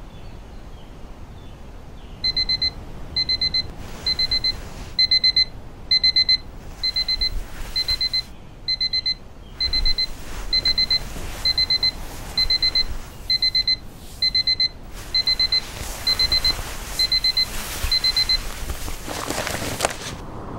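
Electronic alarm clock beeping: groups of quick, high-pitched beeps repeating about once a second, going off beside a sleeper in bed, then stopping. A rising whoosh near the end.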